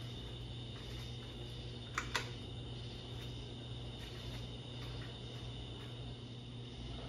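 Hampton Bay Roanoke ceiling fan running with a steady motor hum, slowed by a failing run capacitor. Two sharp clicks come close together about two seconds in.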